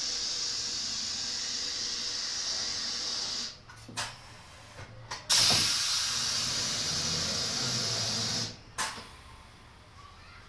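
Pneumatic screen-printing machine for woven sacks cycling. Compressed air hisses steadily for about three and a half seconds, then cuts off with a few short clicks. A second hiss of about three seconds starts sharply, ending with another click near the end as the print frame moves.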